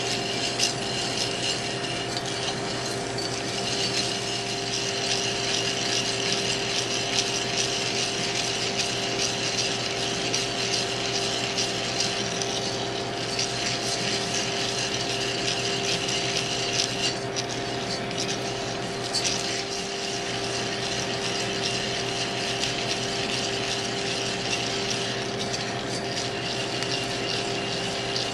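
Green coffee beans stirred with a wooden spoon in a cast iron pan: a continuous scraping rattle of beans sliding over the iron, which eases briefly about two-thirds of the way through. A steady hum runs underneath.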